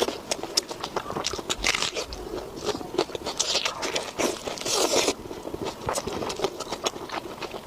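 A person chewing and biting food close to the microphone: a run of quick wet, crunchy clicks, with louder crunchy stretches about three and a half and five seconds in.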